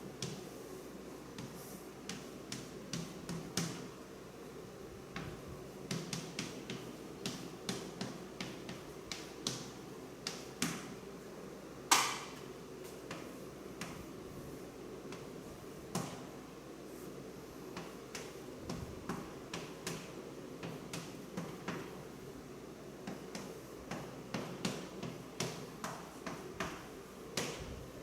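Irregular light taps and clicks of a pen on a writing surface while a diagram is drawn, with two sharper knocks about 12 and 16 seconds in, over faint room hum.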